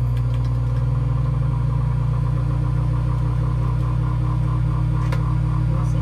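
Microwave oven running: a steady low hum with a faint fast pulsing over it, and one faint click about five seconds in.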